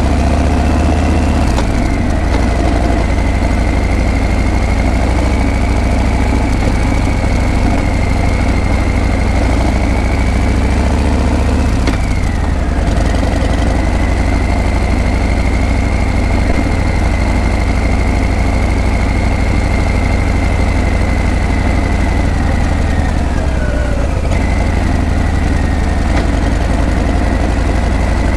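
Harley-Davidson Breakout's V-twin engine and exhaust running steadily. The pitch dips briefly three times: near the start, about midway and near the end.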